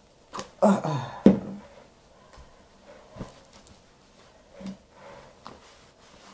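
A short vocal sound and a sharp click about a second in, followed by a few faint handling clicks and knocks in a small kitchen.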